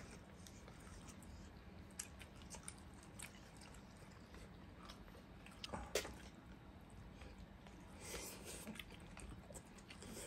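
Faint chewing of fried fish and rice eaten by hand, with scattered small clicks and a sharper click about six seconds in.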